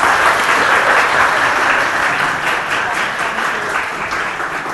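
Audience applauding, many hands clapping at once, easing off gradually toward the end.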